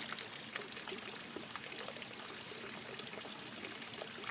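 Stream water flowing and trickling steadily, with small splashy crackles.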